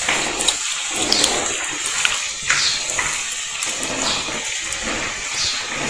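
Chopped nopales tipped from a basin into hot oil and onion in a clay pot, sizzling as they hit the oil: a steady rushing hiss with short, sharper sounds about once a second.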